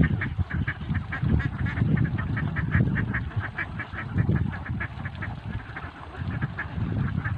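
A flock of itik (domestic laying ducks) quacking continuously, with many short calls coming several a second and overlapping, under a low, uneven rumble.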